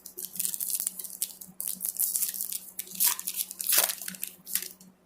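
Baseball trading cards and their pack wrapper being handled and shuffled: an irregular run of crisp rustles and scrapes.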